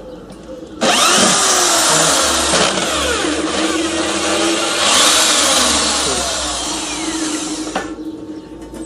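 Angle grinder cutting through a sheet-metal plate: it starts about a second in, runs for about seven seconds with a harsh hiss whose pitch wavers as the disc bites, then cuts off.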